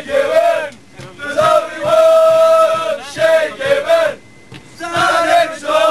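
A crowd of Irish football fans singing a football chant together, in phrases of long held notes with short breaks about a second in and just after four seconds.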